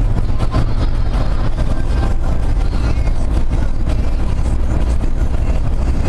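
GAZelle van driving at highway speed, heard inside the cab: a steady low engine drone mixed with road and tyre noise. The engine is running on propane (LPG) after its petrol start.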